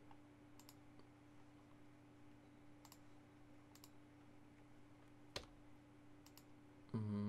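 A few quiet, scattered computer mouse clicks over a steady low electrical hum, with one louder click a little past five seconds in.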